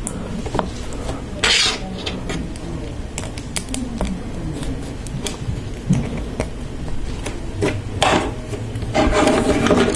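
Plastic Lego Technic pieces being handled and snapped together: scattered small clicks and rubbing, with a rustle about a second and a half in and another near the end.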